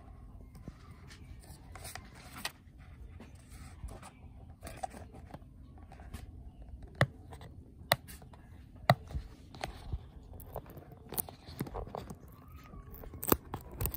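Hands handling and opening a small retail box for a Mcdodo Lightning-to-audio adapter: rustling and scraping of the box and bag, with a string of sharp clicks and taps, the loudest a few seconds apart in the second half.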